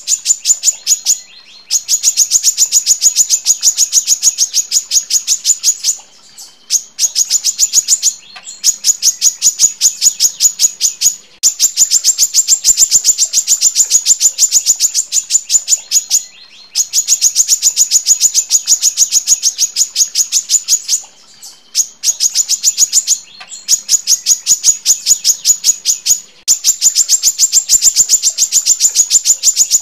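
Female brown-throated sunbird (kolibri kelapa) calling in long, rapid runs of sharp, high notes, about ten a second. Each run lasts a few seconds, with short breaks between runs.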